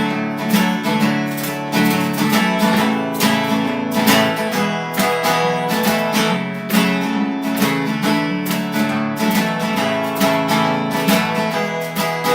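Acoustic guitar strummed in a steady country rhythm, an instrumental break between the chorus and the next verse, with no singing.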